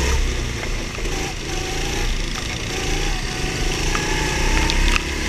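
Go-kart engine running, heard on board: the engine eases off about a second in, then its pitch climbs steadily over the last couple of seconds as the kart picks up speed.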